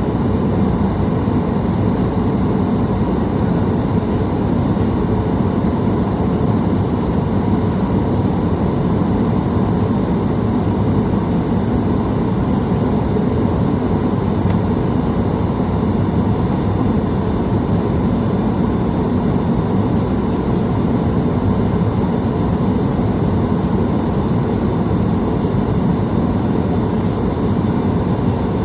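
Steady cabin noise inside a Boeing 737 MAX on approach: its CFM LEAP-1B engines and the airflow past the fuselage make an even, low rumble that does not change.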